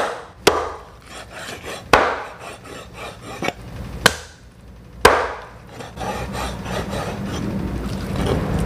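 Meat cleaver chopping through raw chicken on a round wooden chopping block: about six sharp, irregularly spaced chops in the first five seconds, then softer handling noise.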